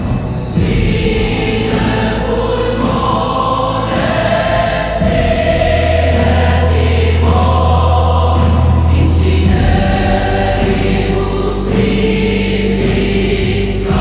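Music with a choir singing long held notes over a deep bass, with a strong low bass note from about five seconds in to nearly ten.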